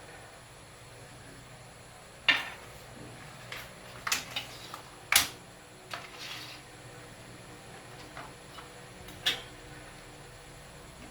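About seven sharp knocks and clicks of hard objects being handled and set down, the loudest about two seconds in and about five seconds in, with a last one near the end.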